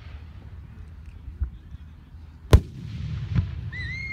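Aerial fireworks shell bursting: one sharp, loud report about two and a half seconds in, with a faint pop before it and a weaker bang a moment after, over a low rumble. A high, steady whistle-like tone starts near the end.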